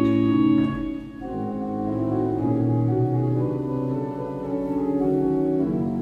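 Church pipe organ playing held chords. The sound falls away briefly about a second in, then new chords build up.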